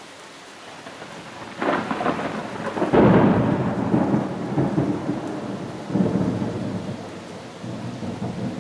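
Thunder rolling: a rumble that swells about one and a half seconds in, is loudest around three seconds, and rolls on in waves before easing off near the end, over a steady background hiss.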